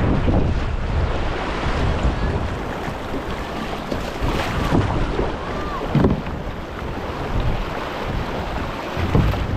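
Turbulent river water rushing below a diversion dam, with wind buffeting the microphone in irregular low gusts.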